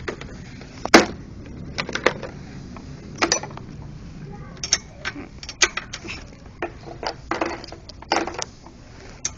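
Steel sockets and hand tools clinking and clattering in irregular knocks, with one sharp metallic clank about a second in.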